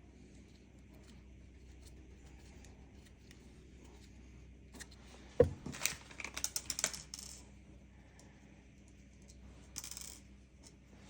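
Small hard plastic and metal parts handled on a tabletop: a single knock, then a quick run of light clicks and rattles, and a short rustle near the end.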